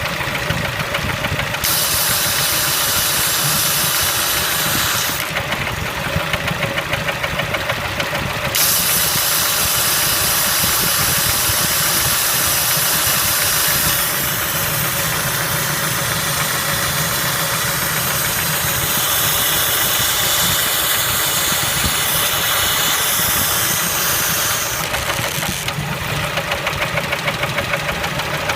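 Kia Spectra engine running with a rapid, regular knock.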